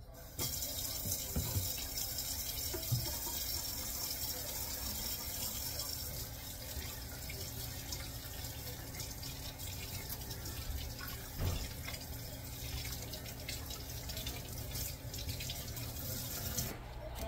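Water running steadily from a tap, turned on about half a second in and shut off shortly before the end, with a few light knocks along the way.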